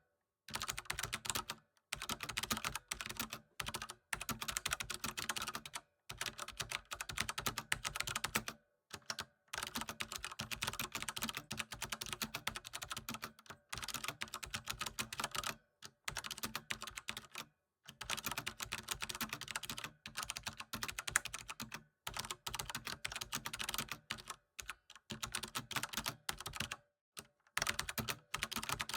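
Fast typing on a computer keyboard: rapid runs of key clicks lasting a few seconds each, broken by short pauses.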